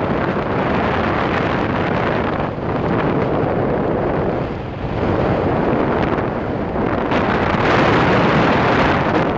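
Wind buffeting the microphone: a loud, continuous rushing roar that swells and eases in gusts every couple of seconds.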